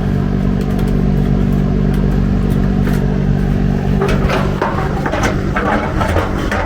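Steady, loud mechanical hum from a running motor. About four seconds in it is joined by light clicks and clatter of parts and tools being handled.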